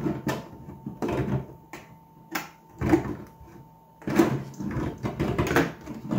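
Irregular knocks and clicks of hand work on a hard plastic RC truck body: screws being driven through the backing plate into the Lexan shell, and the shell being handled and set down on the table.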